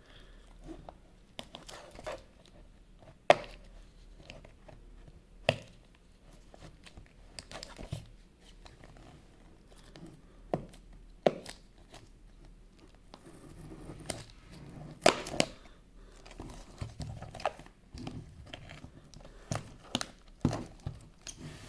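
Packaging of an earbuds box being opened by hand: paper or plastic wrapping tearing and crinkling, with several sharp clicks and taps as the box is handled.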